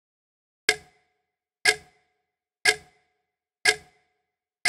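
Clock ticking sound effect: one sharp tick a second, five ticks with silence between, starting under a second in.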